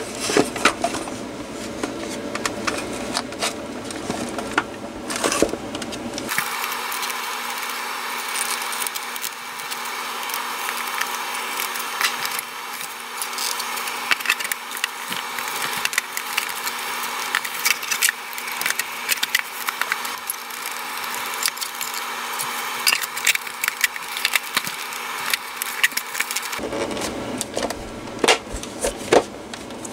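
Plastic housing of a cordless air compressor being handled and fitted back together: irregular clicks, knocks and rattles of hard plastic parts. From about six seconds in until near the end the sound turns thin, with the low end gone.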